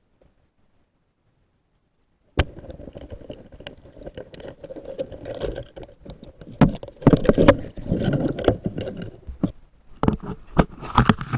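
Water sloshing and splashing around the microphone, starting suddenly a couple of seconds in, with several sharp knocks.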